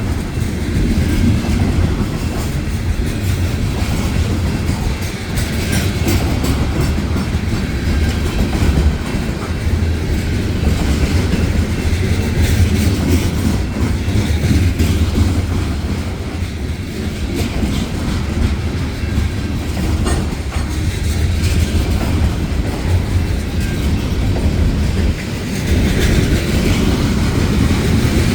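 Freight cars of a Union Pacific manifest train rolling past: a steady low rumble with wheels clacking over the rail joints.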